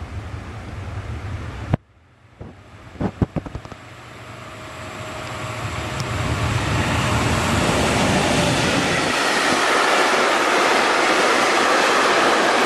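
Freight train hauled by an E483 electric locomotive, with gas tank wagons, approaching and passing close by: the noise of its wheels on the rails swells from about four seconds in to a steady, loud rush. Before it, a low wind rumble on the microphone cuts off suddenly and a few sharp clicks sound.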